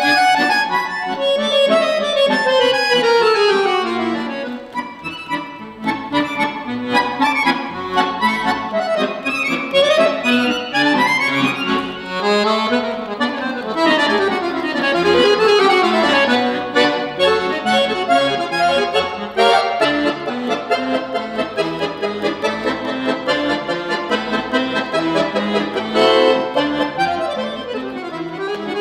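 Solo piano accordion playing fast, virtuosic runs that sweep down and up the keyboard over rhythmic bass chords.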